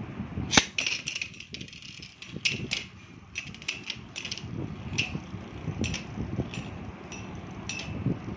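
Metal Beyblade tops spinning and clashing in a plastic dish stadium: a low rattle of the spinning tops broken by irregular sharp clicks and clinks as they strike each other and the dish wall, the loudest about half a second in.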